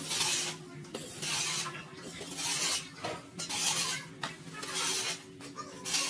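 Rough scraping strokes repeated about once a second, about six in all, with a faint steady hum underneath.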